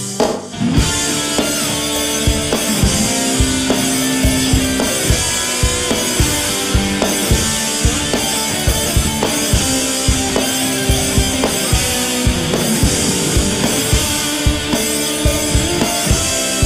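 Instrumental hard rock / progressive metal: electric guitar playing sustained chords and notes over a drum kit with a steady, driving beat. The band drops out briefly just after the start and then comes back in.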